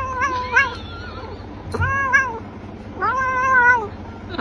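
A grey tabby cat meowing in long, drawn-out calls, three of them, each call arching up and then down in pitch.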